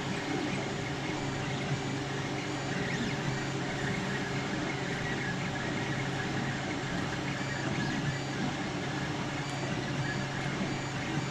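Creality LD-001 resin printer running as its test print starts: a steady low mechanical hum with an even hiss over it.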